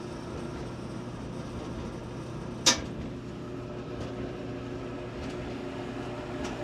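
Whirlpool Duet gas dryer (WGD9200SQ1) running with a steady motor and blower hum, working again after a new control board cleared its F01 no-start fault. About two and a half seconds in there is one sharp click, with a few fainter ticks after it.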